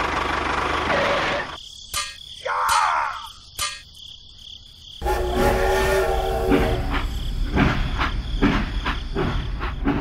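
Battery-powered toy steam locomotive running on plastic track. There is a short rising-and-falling tone about three seconds in. From about halfway on, a buzzing motor runs with regular clicking.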